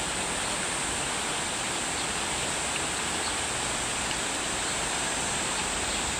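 Mountain valley stream rushing over rocks: a steady, even sound of running water.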